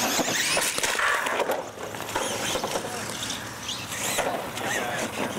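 Radio-controlled monster trucks racing on concrete: motors whining up and down in pitch over the noise of tyres on the pavement, with a few knocks.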